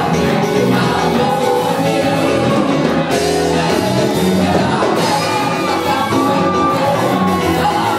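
Live gospel band playing with singing, loud and steady, in a large hall.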